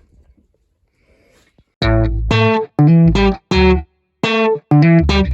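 Background guitar music that comes in about two seconds in: a run of separate plucked chords, a little under two a second, with short gaps between them.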